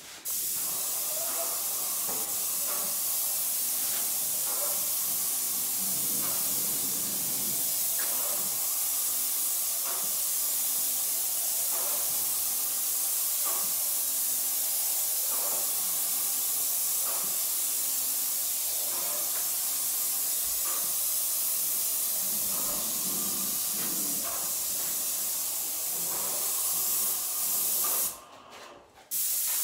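Paint spray gun spraying primer in a steady, loud hiss; it cuts out briefly near the end and then resumes.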